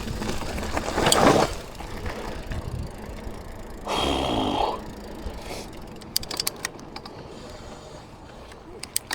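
Mountain bike riding down a trail: rumbling tyre and wind noise, a short squeal about four seconds in, then quieter with scattered sharp clicks as the bike slows.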